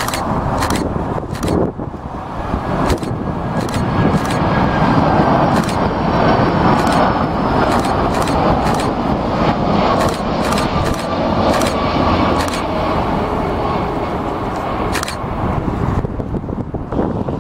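Four-engined Boeing 747-400 freighter passing low on final approach: a loud, steady jet roar that swells over the first few seconds, with a faint whine slowly falling in pitch as it goes by. Sharp short clicks are scattered through the roar.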